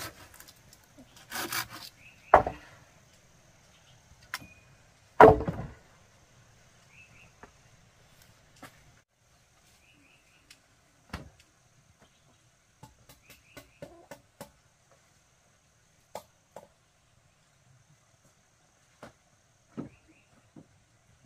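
A brief stretch of hand-sawing on bamboo, then two loud knocks of wood on wood, followed by scattered lighter wooden knocks and taps as logs and bamboo poles are handled on a log frame. A faint steady insect hum runs underneath.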